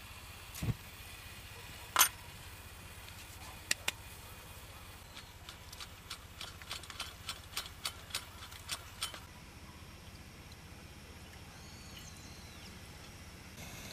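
Small metallic clicks and ticks as a Coleman 442 Dual Fuel liquid-fuel camp stove is handled and lit: one sharp click about two seconds in, then a run of quick irregular ticks, settling to a steady low background after about nine seconds.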